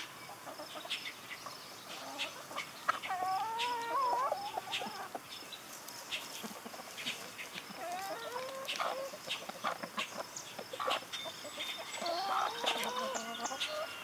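Domestic hens clucking in three bouts of soft, wavering calls while they scratch and peck in loose garden soil. Short scratchy clicks from their feet and beaks in the dirt fall between the calls.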